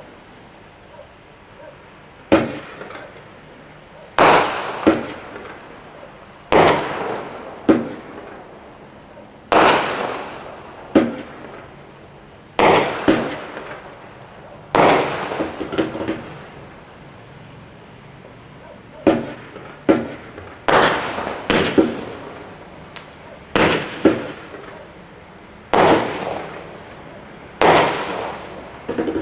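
A Standard Fireworks Single Ignition Multi Effect cake, a multi-shot display lit once, firing its shots one after another. Each shot is a sharp bang that trails off over about a second, coming every two to three seconds and sometimes in quick pairs.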